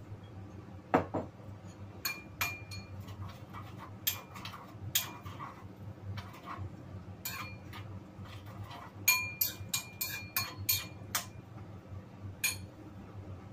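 Metal spoon clinking against a small ceramic bowl as a vinegar sauce is stirred: scattered ringing clinks, with a quick run of them about nine to eleven seconds in.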